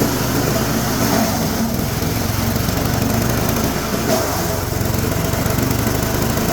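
Engine-driven chopper and grinder machine running steadily, grinding veneer and plywood waste through a 5 mm screen, with a dense rushing noise of material over a fast engine pulse.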